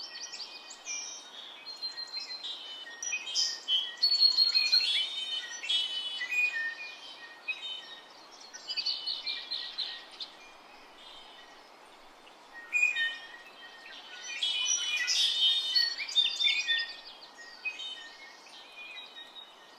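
Wild birds chirping and singing in bursts of short, high calls and trills, with brief lulls between, over a faint steady background hiss.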